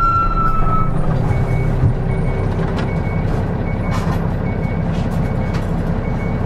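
Nissan Diesel Space Runner city bus's diesel engine running with a steady low rumble. A steady high tone fades out about a second in, then a short high beep repeats about every two-thirds of a second.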